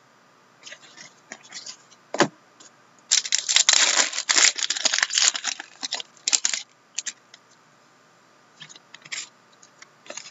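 Trading-card pack wrapper being torn open and crinkled by hand, loudest for about two and a half seconds starting some three seconds in, with shorter rustles and a sharp click of cards being handled before and after.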